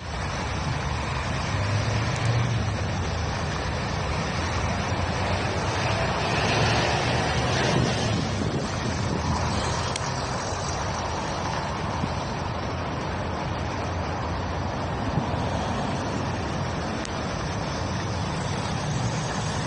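Steady road traffic noise from a city street, an even rumble and hiss with no distinct events.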